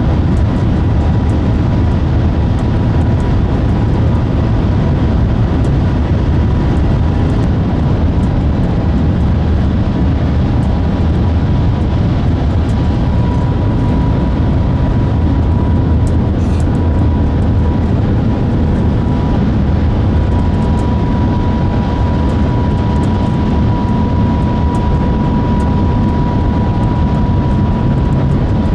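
Steady running noise inside a Shanghai Transrapid maglev train carriage travelling at speed: an even low rumble and rush of air, with a faint steady high tone over it.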